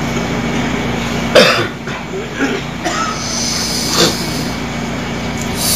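Several short coughs and throat-clearing sounds picked up by a public-address microphone, the loudest about a second and a half in. Under them runs a steady hum from the sound system.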